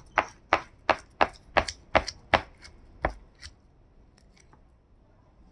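A spoon scraping the flesh of a wolf-herring fillet on a wooden cutting board in quick, even strokes, about three a second. The strokes stop a little over three seconds in, with a few fainter ones after. The raw fish meat is being scraped off the skin and bones for fish balls.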